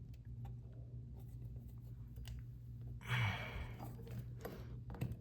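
Faint clicks and small scrapes of a screwdriver tip prying at a stuck faucet valve part, with a heavy exhaled breath about three seconds in.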